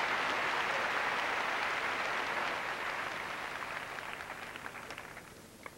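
Tennis crowd applauding after a point: dense clapping that dies away from about three seconds in to a few scattered claps near the end.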